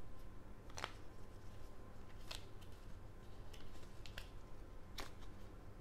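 Faint crinkling and scattered sharp crackles of thin protective plastic film being peeled off a new AirPods Pro 2 charging case.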